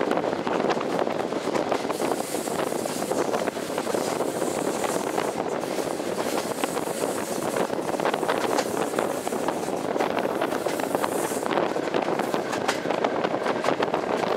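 A train running along the track, heard from an open carriage window: a steady rattle and rumble of wheels on the rails with wind rushing past.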